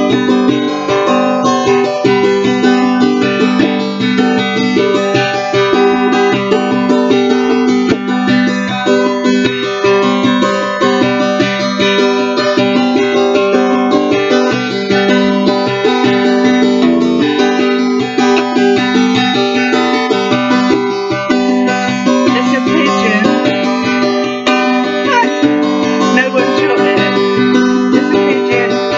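Nylon-string classical guitar strummed in a steady rhythm, sustained chords ringing under each stroke.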